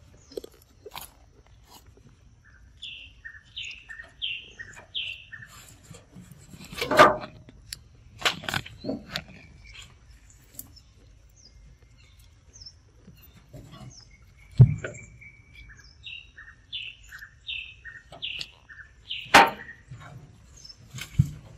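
A bird gives a run of five or six quick, falling chirps twice, about three seconds in and again about sixteen seconds in. Several sharp, loud knocks and crunches close by come from macaques handling and biting into fruit.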